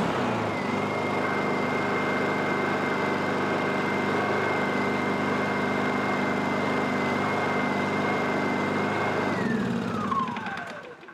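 Honda EU16i inverter generator's small single-cylinder four-stroke engine running steadily with a high whine, back in running order after a fault from water-contaminated fuel and a rusted carburettor. Near the end its pitch falls away and it fades as the engine winds down to a stop.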